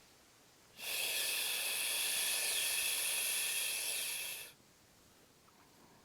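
A steady hiss that starts about a second in and stops sharply after nearly four seconds.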